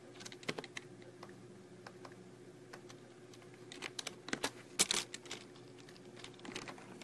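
Faint clicking of a computer keyboard and mouse, scattered, with a cluster of louder clicks about four to five seconds in. A faint steady hum runs underneath.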